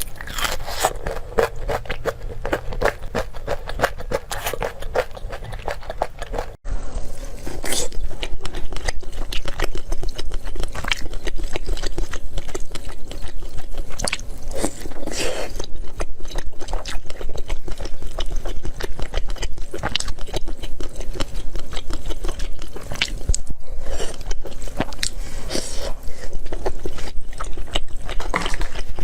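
Close-miked chewing and crunching of food, a dense run of crackly clicks and bites. The sound breaks off for an instant about a quarter of the way in and is louder after.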